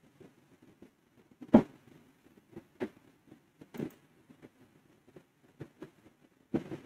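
Scattered sharp clicks of a computer mouse, a handful spaced a second or so apart, the loudest about one and a half seconds in.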